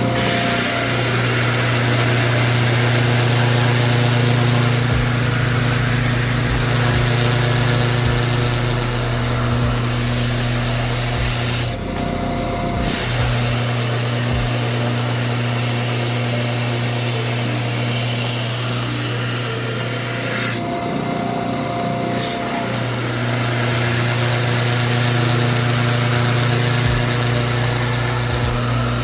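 Electric power tool shaping a wooden skateboard deck: a steady motor hum under the loud noise of the tool working the wood. The wood noise drops away briefly twice, about twelve and twenty-one seconds in, while the motor keeps running.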